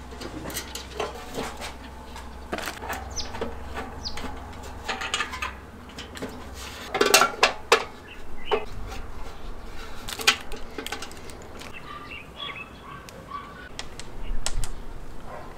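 A new sheet-metal portable barbecue grill being assembled: a hex key turning bolts, and the steel legs and body clinking and knocking. A cluster of louder metal clanks comes about seven seconds in.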